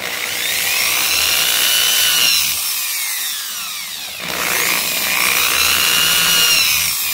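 Small electric drill with a 1.4 mm bit boring pin holes into a thin wooden piece. Its high whine rises and falls in pitch, eases off about four seconds in, then runs again.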